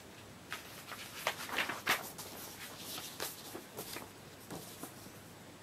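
Paper handling: a cross-stitch chart booklet's pages being turned and a sheet lifted, giving a string of short rustles and crackles.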